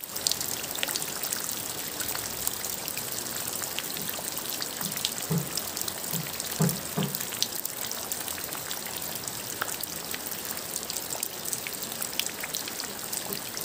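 Steady rain falling into a muddy puddle and onto wet ground: an even hiss made of many small drop hits on the water, with a few short low knocks about halfway through.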